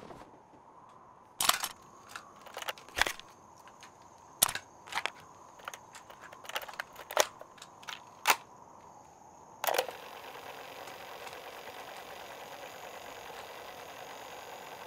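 Portable cassette player being handled: a string of sharp plastic clicks and clacks, about ten of them, over the first eight seconds. A louder click comes just before ten seconds in, and a steady hiss runs after it.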